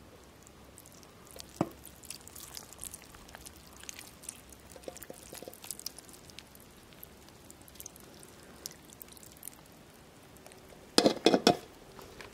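Faint, scattered crackling and rustling from plastic sheeting and damp soil-and-grass bedding in a worm bin being handled, with a louder brief rustle near the end.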